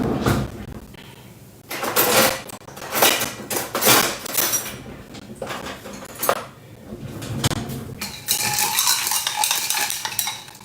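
Dishes and cutlery clattering, with a run of separate clinks and knocks of crockery and utensils being handled. Near the end there is a steady hiss lasting about two seconds.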